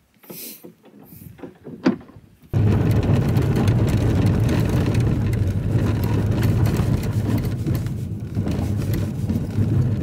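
Car driving, heard from inside the cabin: a steady low rumble of tyres and engine that starts abruptly about two and a half seconds in. Before it, faint rustling and one sharp knock.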